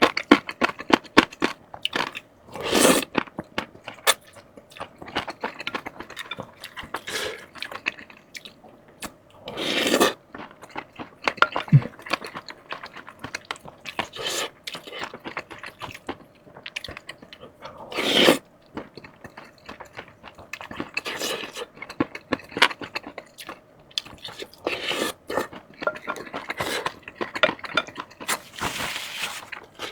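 Close-miked eating of crispy fried chicken: crisp crunching and chewing with many small crackles, and a few louder half-second crunches spaced several seconds apart.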